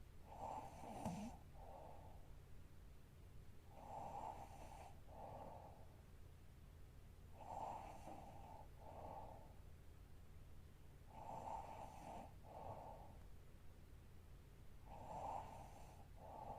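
Woman snoring softly in her sleep, a slow, regular rhythm of about five breaths, one every three and a half to four seconds, each a longer sound followed by a shorter one. A faint steady low hum sits underneath.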